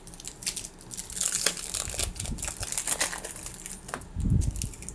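Foil Pokémon booster pack wrapper crinkling and tearing as it is handled and opened, with a dull thump near the end.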